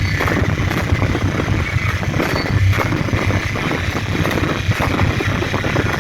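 A loud live band heard through an overloaded, distorted recording: the instruments blur into one dense wall of noise with a heavy low end, broken by irregular drum hits.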